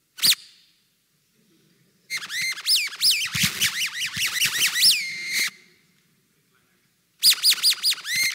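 Chirping, whistle-like squeals from a faulty microphone or sound system: one short chirp at the start, a dense run of rising and falling chirps for about three seconds, then another run near the end.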